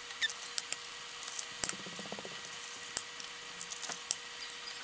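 Eggs being cracked into a glass baking dish: a series of light taps and eggshell cracks, with sharper knocks about a second and a half and three seconds in.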